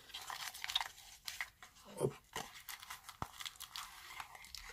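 Scattered small clicks and crinkles of hands handling packaging: a small clear plastic accessory bag being rummaged and small metal vape-mod parts being picked out of the box.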